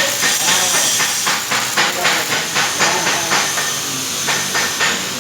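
Stick-welding (SMAW) arc on a pipe joint, crackling and hissing steadily. From about a second in, it pulses sharply about three times a second.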